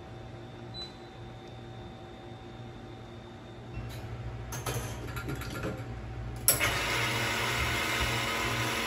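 Wall-mounted air conditioner switched on by remote: a short electronic beep about a second in over a steady low hum. After a few seconds of clatter, a loud steady rushing noise from the espresso machine starts suddenly about two-thirds of the way through.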